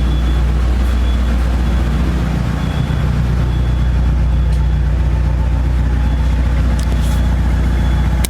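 Car engine running steadily at an even speed, a low, constant hum with no revving.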